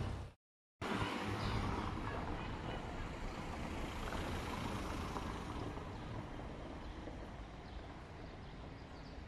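Street traffic noise, a steady rush of passing vehicles that is loudest near the start and slowly fades. A brief drop to dead silence comes about half a second in.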